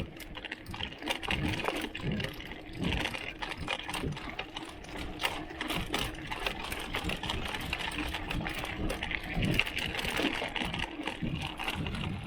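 Mountain bike's bottle cage rattling as the bike is ridden: a fast, irregular clatter of small clicks.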